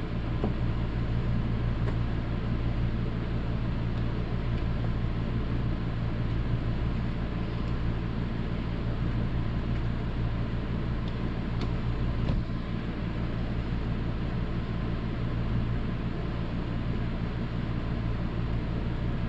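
Steady low mechanical hum from a running machine, unchanging throughout, with a few faint clicks about twelve seconds in.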